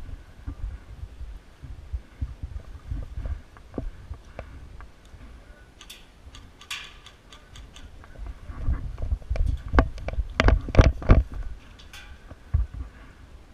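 Footsteps and gear knocking against a body-worn camera as an airsoft player moves, with scattered sharp cracks of airsoft gunfire, thickest in the second half.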